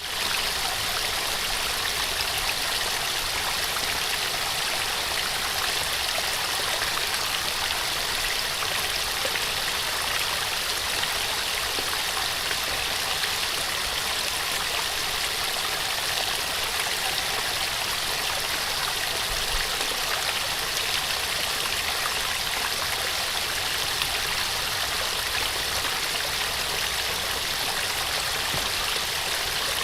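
A small waterfall: a steady, even rush of falling and splashing water, mostly high and airy with little low rumble.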